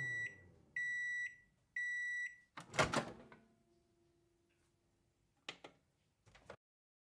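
Microwave oven finishing its cycle: the running hum stops and it gives long, even beeps about a second apart. Then the door latch pops open with a sudden loud clunk, the loudest sound, and a couple of light clicks follow near the end.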